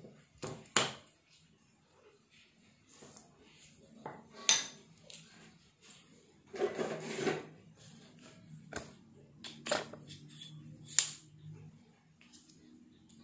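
Cast-iron pillow block bearings and steel shafts clinking and knocking against each other as they are handled and set down, a handful of sharp metal knocks spread through, with a longer rubbing, handling sound about halfway.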